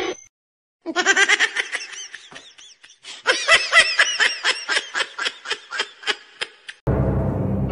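A person laughing hard in two long runs of rapid 'ha-ha' pulses, the second run fading out. Music cuts in abruptly near the end.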